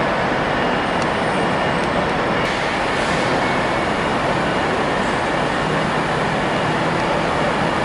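Steady railway station din under a large train shed: trains standing and running at the platforms, a continuous mechanical rumble and hiss with no single event standing out.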